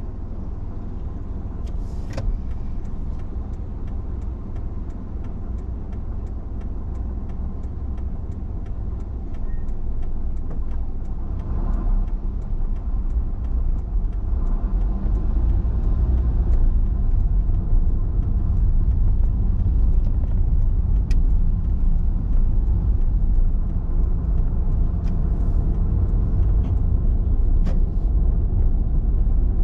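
Car engine and road noise heard from inside the cabin: a low, steady rumble while stopped in traffic, growing louder about halfway through as the car pulls away and gathers speed.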